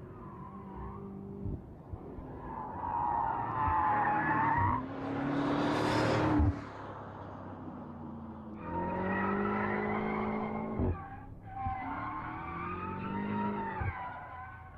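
BMW M5 F90's twin-turbo V8 driven hard, with tyres squealing in three or four bursts of changing pitch, and a loud rushing surge about halfway through.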